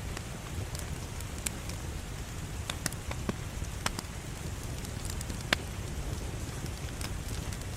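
Wood fire crackling in a fireplace: a steady low rumble of burning with scattered sharp pops and snaps, the loudest about five and a half seconds in.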